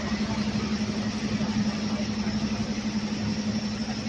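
Water jet from a fire robot's monitor nozzle, set to a wide spray pattern, hissing steadily, over a steady low engine drone.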